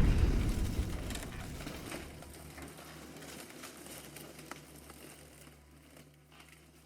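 The tail of a bomb explosion: a low rumble dying away over several seconds, with scattered small crackles and patters like falling debris, fading to near silence near the end.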